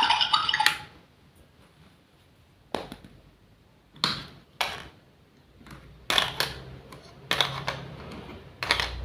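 Running water cuts off just under a second in, then six light clicks and knocks of small objects, as with miniature kitchenware being handled and set down, about a second apart.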